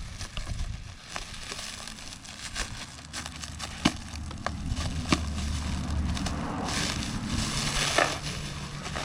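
Tool packaging being handled and opened: crinkling and crackling with scattered sharp clicks and knocks, then a denser stretch of rustling and tearing about seven to eight seconds in.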